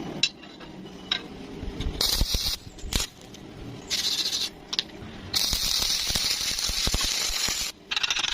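Electric welding arc crackling and sizzling in stop-start bursts: several short bursts, then a longer steady run of about two and a half seconds, cutting off and starting again near the end.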